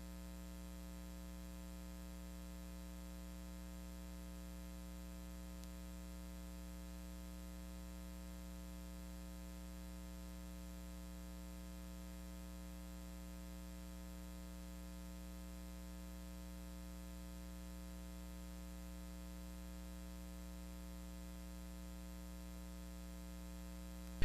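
Faint, steady electrical hum with a light hiss, unchanging throughout.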